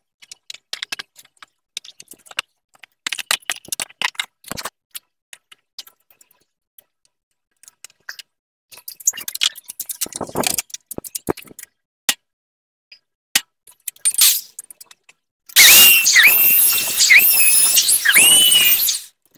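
Scattered clicks and knocks of plastic body parts being handled and fitted on a dirt-bike frame, then about fifteen seconds in a hand-held electric drill runs loud, boring into the plastic rear fender, its whining motor dipping in pitch several times as the bit bites, before it stops.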